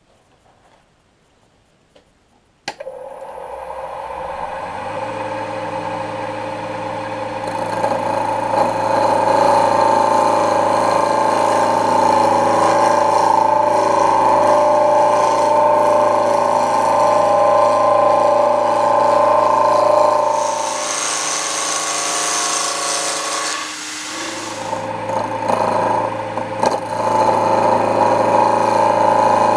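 Wood lathe switched on with a click about three seconds in, its motor winding up to a steady hum with several steady tones. A gouge then cuts the spinning wood blank, with a hissing stretch of cutting near the end.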